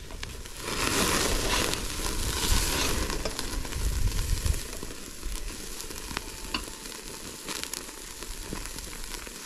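Food frying over an open fire: a loud burst of sizzling about a second in, settling into a steady sizzle with scattered crackles and pops.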